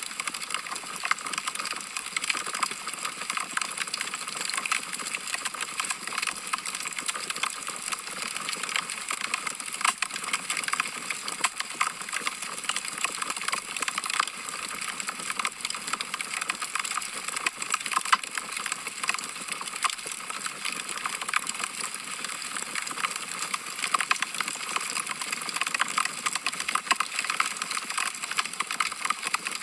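Wood fire crackling: a steady stream of small, sharp snaps and pops from burning logs, with no low rumble.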